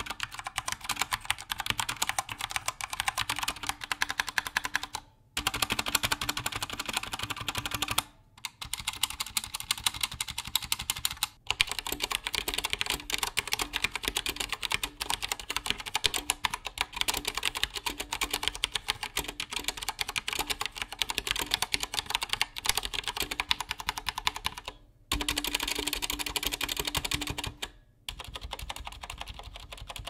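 Fast touch typing on Akko 3068 and 3084 mechanical keyboards with Cherry MX Brown switches and thick PBT keycaps: a dense, even patter of key clacks, broken by a few brief pauses.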